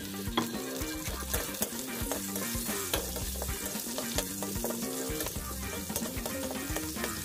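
Garlic cloves and onion wedges sizzling in hot oil in a wok while being stirred with metal tongs, with frequent sharp clicks and scrapes of the tongs against the pan.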